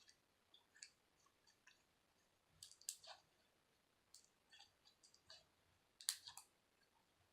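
Slime being squeezed and worked in the hands, making scattered soft clicks and pops, the loudest about 3 and 6 seconds in.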